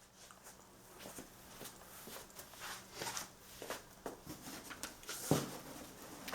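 Scattered light clicks and knocks in a small room, with one louder thump about five seconds in.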